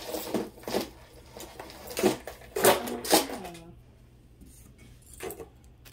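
Beads and metal chain of costume jewelry clicking and rattling as a multi-strand gold-tone bead necklace is handled and laid on a heap of jewelry, with a few louder clacks around two to three seconds in.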